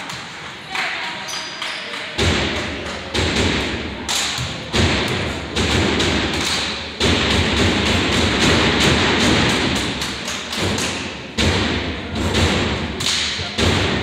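Crowd noise at a game, swelling in about two seconds in, with many sharp, irregular thumps and knocks throughout.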